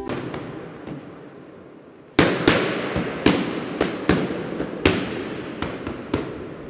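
Small plastic seasoning shaker being shaken over a plate of fries: a run of sharp, irregular knocks with a rattly hiss between them, louder and coming two or three a second from about two seconds in.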